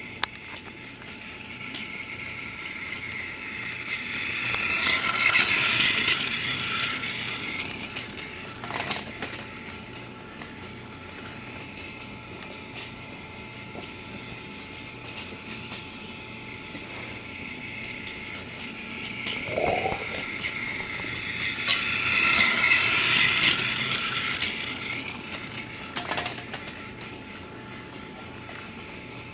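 Battery-powered toy Thomas train's small electric motor and plastic gears whirring as it runs along the track, growing louder twice and fading again, with a few clicks.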